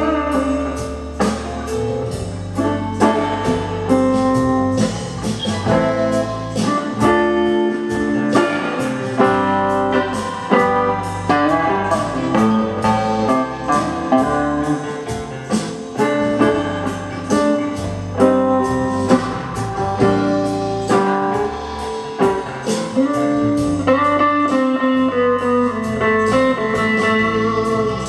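Fender Stratocaster electric guitar played clean through a 1980 Fender Harvard Reverb II amp with no effects, playing slow blues lead lines over a backing track with a steady drum beat and bass.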